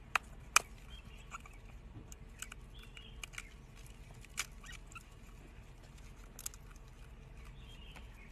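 Eggshell clicking and crackling as fingers peel it, with sharp clicks in the first second and sparser ones later. Faint high squeaks from hairless newborn animals come now and then.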